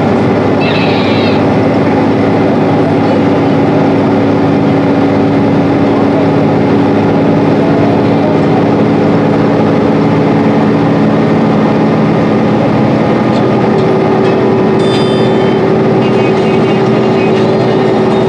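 Inside a 2012 Gillig BRT transit bus cruising on the highway: the Cummins ISL inline-six diesel and Allison B400R automatic transmission give a steady drone with a couple of steady tones in it, over road and tyre noise. One tone in the drone grows louder near the end.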